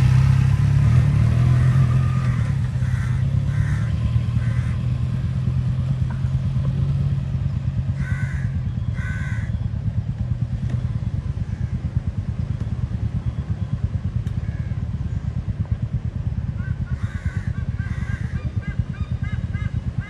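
Motorcycle engine pulling away, loudest at the start and easing off as it goes. Crows caw in pairs three times.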